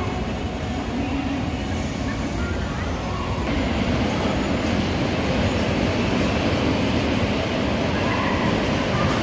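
Bumper cars rolling and rumbling across the arena's floor, a steady rumbling noise that grows louder about three and a half seconds in.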